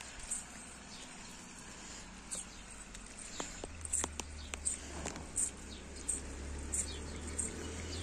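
Faint outdoor ambience: scattered light clicks and short high chirps, with a low steady rumble that comes up about halfway in.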